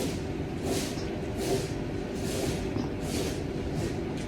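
Steady road and engine noise inside a moving car, with a few soft swishes.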